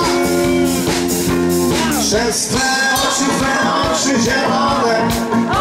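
Live band music: a male vocalist singing through a microphone over electric bass and a steady beat.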